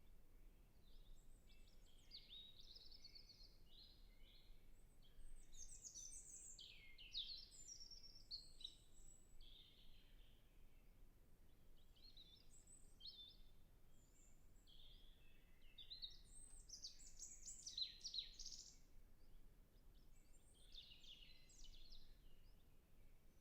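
European robin singing faintly: about five short, varied, high warbling phrases, each separated by a pause of a second or two.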